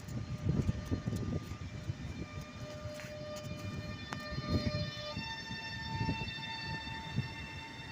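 Electric train's traction equipment whining in several steady tones that step up to a higher pitch about five seconds in, over a low uneven rumble, with a couple of sharp clicks.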